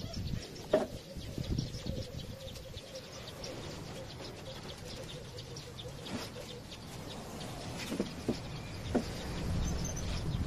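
Outdoor ambience with faint bird chirps and scattered knocks and scrapes of a broom on wet terrace tiles.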